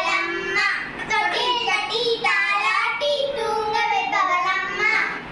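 Two young girls singing a Tamil song about mother together.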